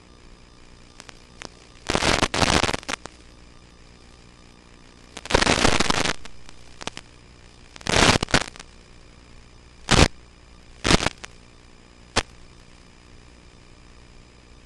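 Steady hiss of an analog FPV video link's audio, broken by loud bursts of crackling static: two about a second long, then shorter, sharper cracks toward the end.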